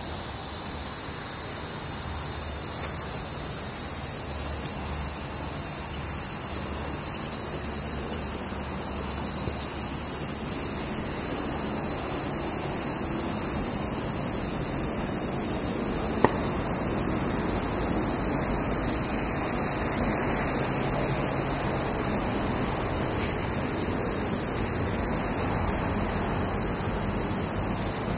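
A dense, steady chorus of summer cicadas buzzing, with one sharp click a little past halfway.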